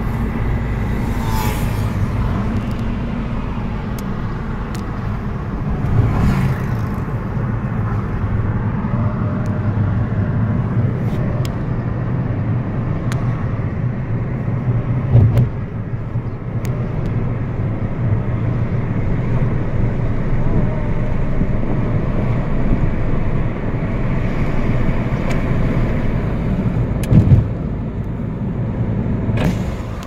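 Car driving, heard from inside the cabin: a steady low hum of engine and road noise, with three louder thumps along the way.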